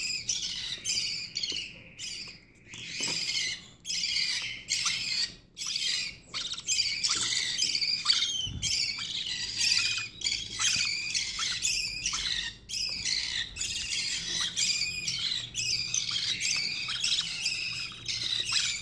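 Budgerigar chicks giving harsh, rapid begging calls, about three a second without letup, while being hand-fed formula from a syringe.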